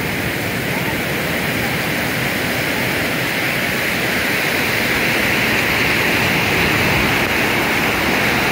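Ocean surf breaking and washing on the shore: a steady, continuous rush that grows a little louder.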